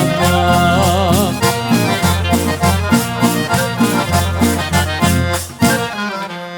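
Albanian folk dance music: accordion playing a wavering melody over a bass line and a steady beat.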